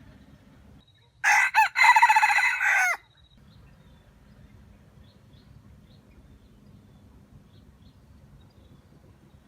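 A rooster crowing once, about a second in: two short opening notes, then a longer note that drops in pitch at its end and cuts off.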